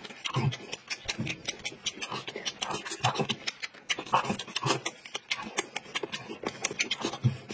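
Close-miked eating: a man chewing dumplings with open-mouthed, wet smacking and many quick irregular mouth clicks.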